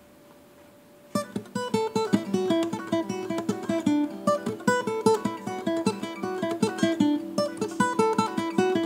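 Instrumental music on a plucked acoustic guitar: after about a second of faint hum, a quick, even run of picked notes starts and carries on as the song's introduction.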